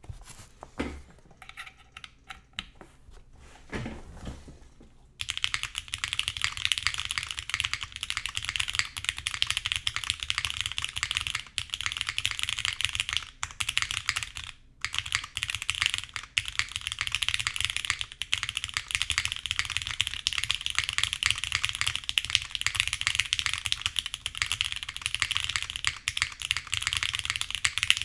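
Steady, fast typing on a Portal mechanical keyboard with polished Cherry MX Black linear switches, an aluminium plate, an O-ring mount and GMK ABS keycaps: a dense run of clacking keystrokes. Before that, for about the first five seconds, there are only a few scattered taps and knocks as the keyboard is handled, and then the typing starts abruptly.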